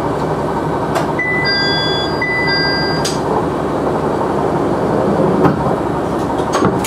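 KiHa 100 diesel railcar idling while standing at a station. An electronic beep sounds twice in the first few seconds, followed by a sharp click about three seconds in.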